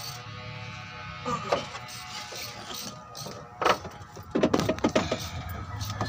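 Plastic clicks, knocks and rattles from a vehicle's electronic control box being handled and worked loose from its mounting among the wiring. The sharpest clicks come in the second half.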